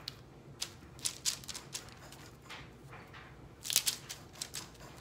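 A drinking glass pressed and twisted through rolled pie dough onto a countertop to cut out circles: scattered short scrapes and light knocks, the loudest cluster about four seconds in.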